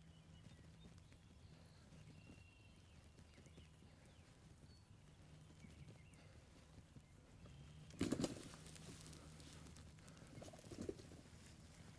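A quiet field with a few faint bird chirps, then a sudden loud burst of sound about eight seconds in and a shorter, weaker one near the end.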